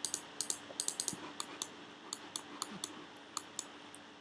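Computer keyboard keys clicking in quick irregular runs, dense in the first second and a half and sparser after, over a faint steady hum.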